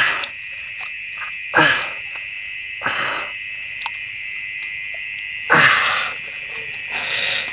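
Night chorus of frogs and insects: a steady high-pitched trill, broken by about five loud short sounds, some of them falling in pitch.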